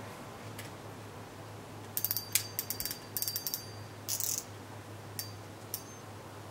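Yoshikawa CY3000 baitfeeder spinning reel clicking and ratcheting as it is worked by hand: a few single clicks, with four short runs of rapid clicks between about two and four and a half seconds in.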